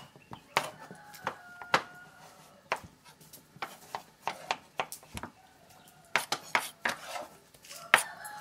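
A knife knocking and clinking irregularly against a cutting surface as baby marrow is sliced into small pieces, a few strikes a second, louder near the end.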